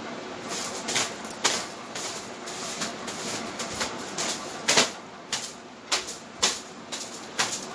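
Household handling noises: an irregular series of about a dozen sharp clicks and knocks, the loudest a little under five seconds in, as someone moves about and handles things while tidying a bedroom.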